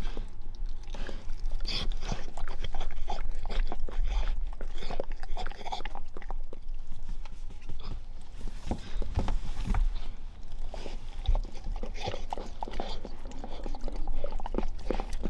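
Weimaraner bitch in the pushing stage of labour, with the amniotic sac showing, licking at her rear and shifting on the bedding: irregular wet licking and smacking sounds with rustling.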